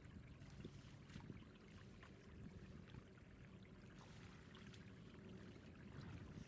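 Faint water sounds, a steady trickling and sloshing with small scattered clicks.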